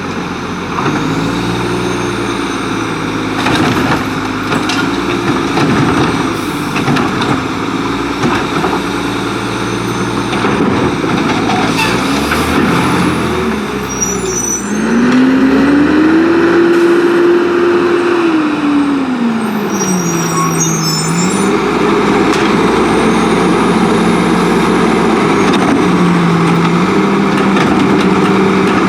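Autocar WX garbage truck's diesel engine revving in gear, its pitch climbing and falling over and over. About halfway through it makes one long rev, holds high for a few seconds, drops back, then settles to a steadier note.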